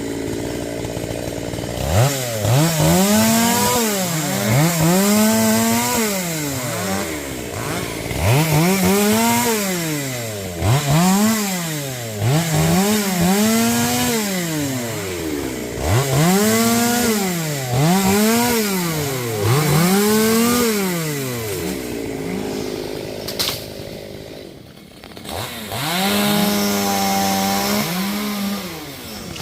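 Two-stroke chainsaw revved up and down over and over, about once a second, with a short dip in speed near the middle of the last third, then held at a steady high speed near the end.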